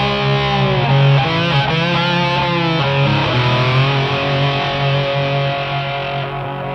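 Background music of sustained, overlapping held tones, growing quieter toward the end.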